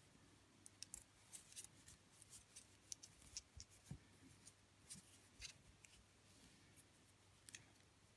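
Faint, irregular clicks of metal circular knitting needles tapping together as stitches are knitted, against near silence.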